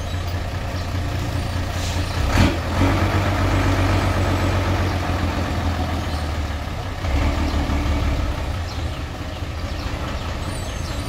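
Bedford dumper truck's engine running at idle with a steady low rumble, a short sharp burst of noise about two and a half seconds in, and the engine note swelling slightly about seven seconds in.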